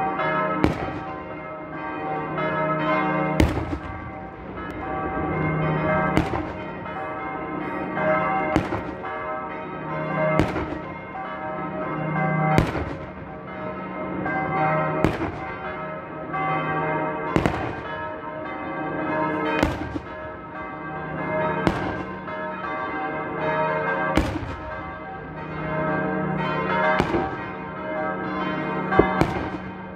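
Church bells ringing continuously while Christmas shooters fire black-powder salute shots one after another, about one bang every two seconds, a dozen or so in all.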